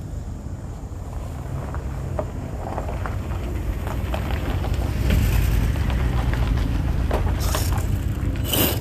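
Radio-controlled mud truck driving over loose gravel toward the microphone, with small crunches and clicks from its tyres growing louder about halfway through, and a short loud spray of gravel near the end as it passes. A low wind rumble on the microphone runs underneath.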